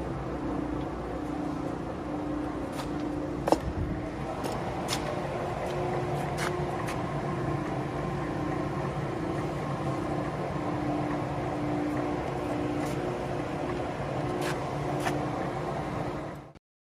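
Timemaster TI-160 gap bed engine lathe running: a steady mechanical drone with a pulsing hum, a few light clicks and one sharp knock about three and a half seconds in. The sound cuts off abruptly near the end.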